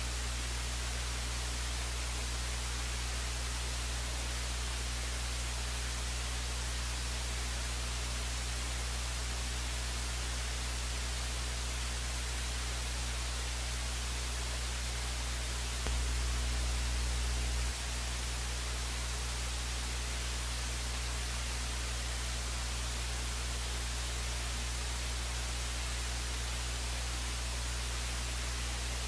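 Steady hiss and low electrical hum with no voices. The hum gets louder for about two seconds just past the middle, then drops back.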